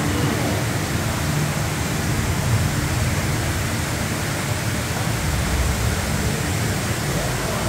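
Steady rush of a tall man-made waterfall, several streams of water falling down a plant-covered wall.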